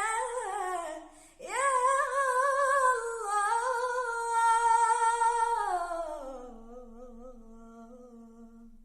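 A girl's unaccompanied voice sings the long drawn-out closing notes of a nasheed. The line is held with vibrato and breaks briefly about a second in. It drops to a lower note about six seconds in and fades out.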